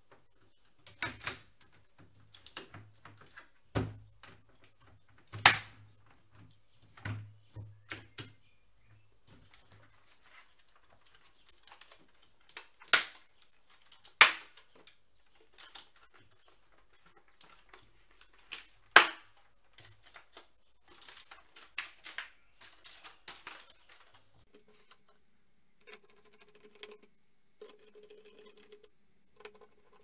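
Sharp plastic clicks and snaps as the top bezel of a mechanical keyboard's plastic case is pressed back into place, then knocks of the case being handled and turned over, several of them loud and sudden. A quieter steady sound comes in near the end.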